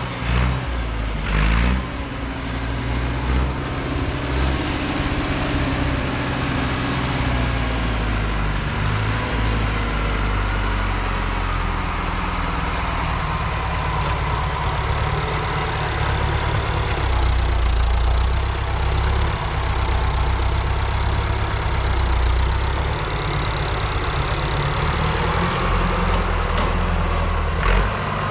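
A motor vehicle's engine running steadily, its low hum shifting slightly in pitch now and then.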